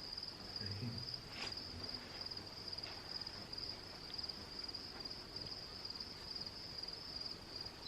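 Crickets chirping in a steady, high, evenly pulsing trill.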